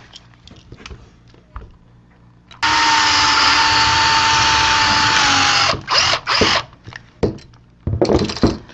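Electric drill drilling out a pin that holds an old toggle light switch together: it runs steadily for about three seconds, its pitch dropping slightly as it stops, then gives two shorter bursts.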